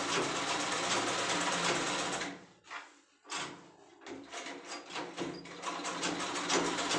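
Black domestic sewing machine stitching at a steady, fast rate. It stops about two seconds in; after a short pause the handwheel is turned by hand and the machine starts stitching again, picking up speed near the end.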